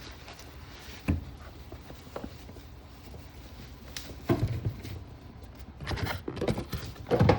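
A parcel being unpacked by hand: scattered knocks, taps and rustling of the box and packing material.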